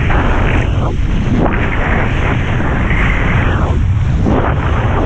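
Strong wind buffeting the microphone, a steady low rumble, while a kiteboard skims the water, its hissing rush swelling and fading every second or so.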